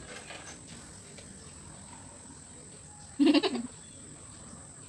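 Quiet room tone, broken about three seconds in by a girl's short, pulsing laugh lasting about half a second.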